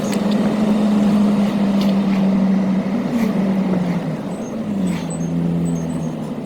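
A car driving along: a steady engine hum over road and tyre noise. The hum drops a little in pitch about four seconds in, and faint high chirps come in near the end.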